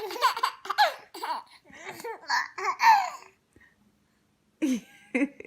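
Baby laughing in a run of short, bubbling bursts, breaking off for about a second near the end before laughing again.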